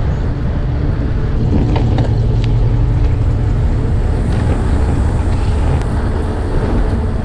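Loud, steady wind rumble on the microphone of a road bicycle being ridden into a strong wind, with road and traffic noise under it.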